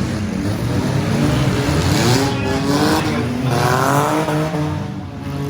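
Six-cylinder demolition derby car engines running and revving hard, with the pitch climbing in revs about two seconds in and again about three and a half seconds in.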